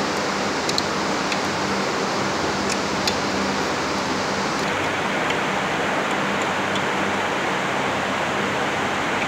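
Steady fan-like hiss with a low hum, with a few faint metal clicks in the first few seconds as a hand tool works the pump's packing gland nuts.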